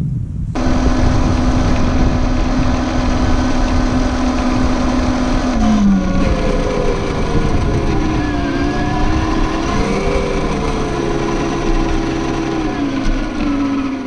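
RC4WD Trail Finder 2 scale RC truck's electric motor and gear drive whining as it drives, picked up by a camera on its roof. The whine holds steady at first, drops about six seconds in, then rises and falls with the throttle.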